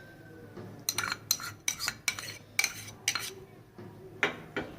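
A spoon clinking and scraping against a mixing bowl in a quick run of short strokes from about a second in, with one more knock near the end, as chopped coriander goes into ground black-lentil batter.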